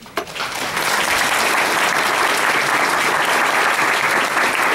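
Audience applauding, a few first claps swelling within a second into steady, full applause.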